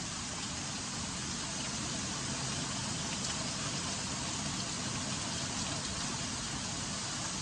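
Hail falling steadily through trees and onto the ground, a dense, even hiss.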